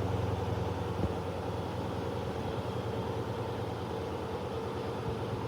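Candy washing machine's drum spinning during an interspin, a steady motor hum with one small click about a second in.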